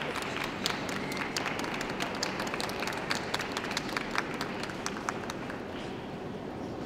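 Scattered audience applause: irregular hand claps over the hum of a large hall, thinning out over the last couple of seconds.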